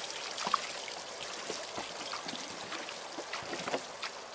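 Water trickling and splashing, with scattered small clicks and knocks.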